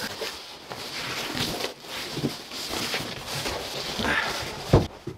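A large cardboard box and plastic packing rustling and scraping as they are handled, with a sharp knock near the end.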